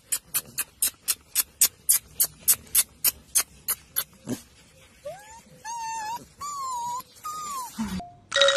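A quick run of sharp clicks, about four a second, lasting about four seconds. Then golden retriever puppies whine: about four short, high whines that rise and fall.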